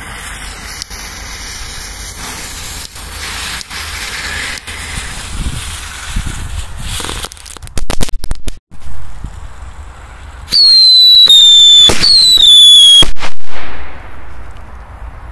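Fireworks going off: a fizzing hiss of burning fuses and sparks, a quick string of sharp bangs about eight seconds in, then a few seconds of loud, shrill whistling that falls in pitch. The whistling comes from whistling 'mouse' ground spinners.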